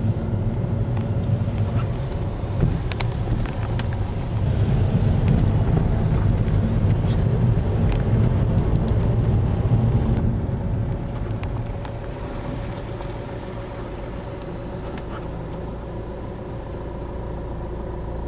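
Steady engine and tyre rumble of a car on a wet road, heard from inside the cabin. It grows louder about four seconds in and eases off after about ten seconds, with scattered faint ticks on top.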